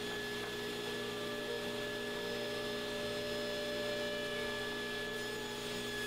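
Table saw running with no cut, its blade spinning freely between rip cuts and giving a steady hum.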